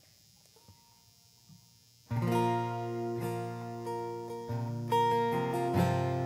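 Acoustic guitar strumming chords, coming in suddenly about two seconds in after a quiet start, with the chord changing twice. These are the opening chords of a song.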